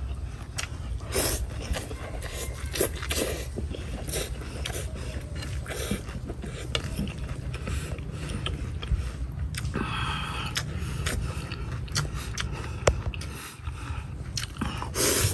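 A man eating rice noodles with chopsticks: irregular slurps, chewing and small clicks, with a longer slurp about ten seconds in, over a steady low hum.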